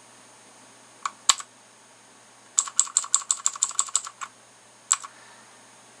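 Keys of a SURNT CM635 mechanical keyboard clicking as they are pressed: two or three presses about a second in, a quick run of about a dozen, then one more press near the end.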